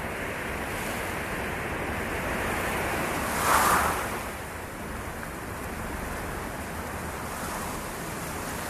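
Steady rushing background noise with an SUV driving past, swelling to its loudest about three and a half seconds in and then fading.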